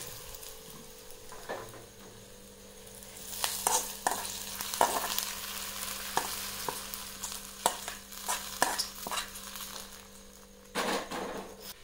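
Hot coconut-oil tempering of shallots, dried red chillies, fenugreek and curry leaves sizzling as it is tipped from an aluminium kadai onto a curry in a clay pot. A metal spoon scrapes and taps against the pan about a dozen times.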